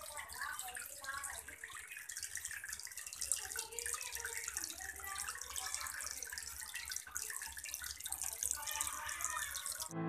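Small homemade fountain running: thin streams of pumped water falling from a PVC pipe into a plastic tub of pebbles, a faint, steady splashing and trickling. A steady low hum sits underneath.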